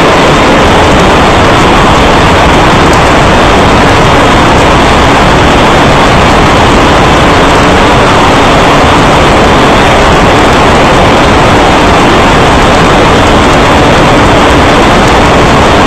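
Motorcycle riding at speed: steady, loud engine and wind noise that does not let up, heavily overloading the on-board microphone.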